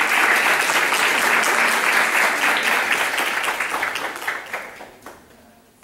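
Applause from a group of people, many hands clapping at once, dying away about five seconds in.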